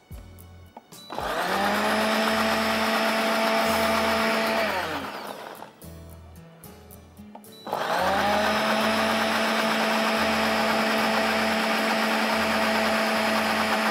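Electric blender grinding a thick sesame (til) chutney: the motor spins up about a second in, runs steadily, winds down at about four and a half seconds, pauses, then starts again at about eight seconds and runs on.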